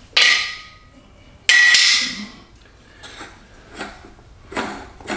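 Two loud metal-on-metal clanks about a second and a half apart, each leaving a short ringing tone, then several lighter knocks from the mower deck's spindle parts and tools being handled.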